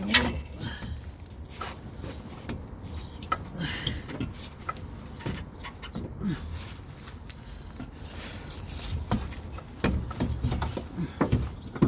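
Scattered light clicks and knocks as a Toyota Verso's front drive shaft is handled and its outer CV joint worked out of the wheel hub, over a low steady hum.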